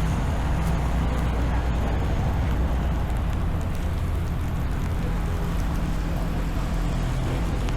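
Steady low rumble of a motor vehicle engine running, over the general noise of street traffic.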